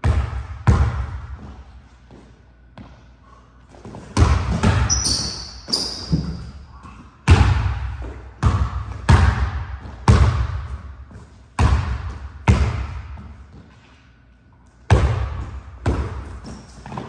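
Basketball dribbled on a hardwood court: a string of loud bounces at an uneven pace, each echoing around the gym, with a lull between about two and four seconds in. Sneakers give a few short, high squeaks on the wood.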